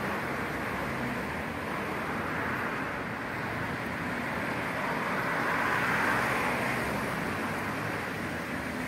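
Steady noise of city road traffic, swelling for a few seconds about six seconds in as a vehicle passes.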